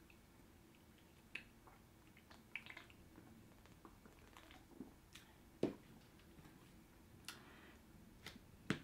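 Faint eating sounds close to the microphone: chewing noodles with small wet mouth clicks, and a few sharper clicks, the loudest just past the middle and at the very end.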